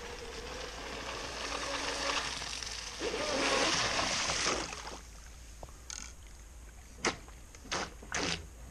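Electric RC racing catamaran running fast through choppy water: its motor and spray hiss grow louder as it comes close, then fall away about five seconds in. Three short sharp bursts follow near the end.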